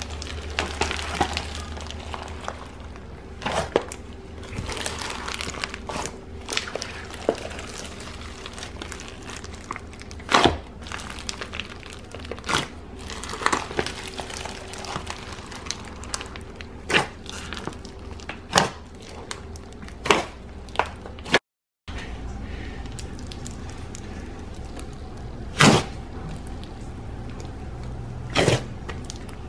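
Hands squishing and pressing thick slime loaded with foam beads and clay charms, giving irregular crunchy crackles and sharp pops. After a brief cut about three-quarters of the way through, a smoother slime being pressed and poked, with a few more sharp pops.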